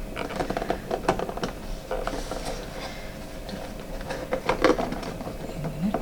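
Hard plastic packaging being handled and pulled apart to free a GoPro camera: a run of small clicks, taps and rattles in bursts.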